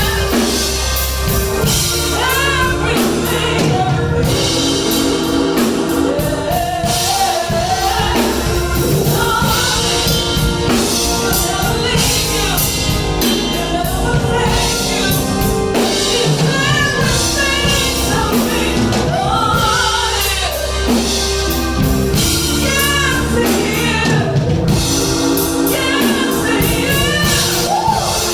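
Gospel song with lead and backing vocals over bass, keyboard and drums.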